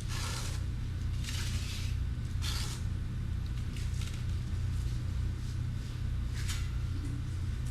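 A few short scrapes of a knife working sand-mixed Redgard waterproofing out of a mud tray, over a steady low hum.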